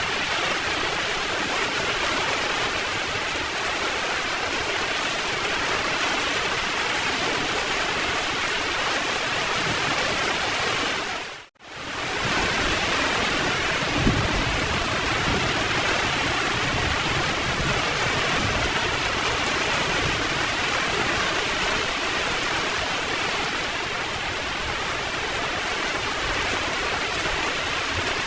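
Heavy rain falling steadily, a dense hiss. About eleven seconds in it fades out to silence for a moment and straight back in, and from a couple of seconds later a low rumble of thunder rolls on under the rain for several seconds.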